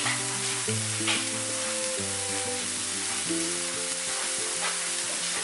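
Diced onions, potatoes and green chillies sizzling steadily in a non-stick frying pan, the onions sweating off, with a spoon scraping the pan now and then. Soft background music with held low notes plays under it.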